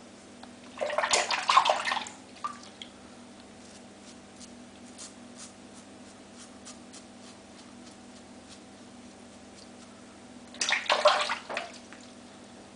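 Water splashing as a safety razor is rinsed, in two short bursts about ten seconds apart.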